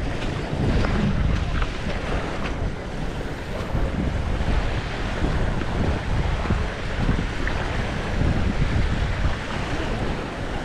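Wind buffeting the microphone in gusts over the steady wash of sea surf.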